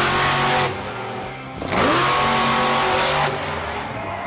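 Monster truck's supercharged V8 engine revving hard in bursts, the pitch climbing quickly and then held at full throttle: once right at the start and again about two seconds in.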